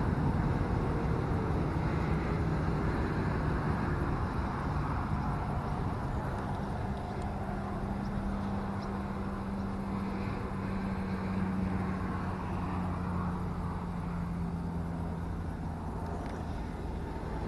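Steady low rumble of motor traffic with a low engine drone that holds through the middle and fades slowly toward the end.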